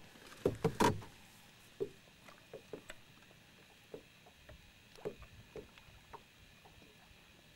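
Irregular knocks and light water splashing around a small fishing boat, with a cluster of sharper knocks about half a second to a second in, then scattered softer ones.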